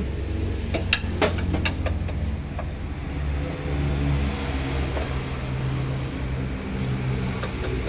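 Mitsubishi PS100 truck's diesel engine running during tuning, its speed rising and falling. A few sharp clicks sound about a second in.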